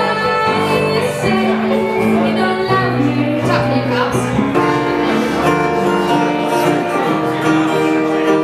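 Music: a song with a sung vocal over instruments, held notes changing every second or so.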